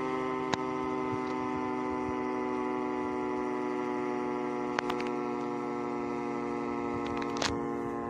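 GP8 siren sounding during a siren test, holding a steady, unchanging chord of several tones. A few sharp clicks cut through it: one about half a second in, a pair near the middle, and one near the end.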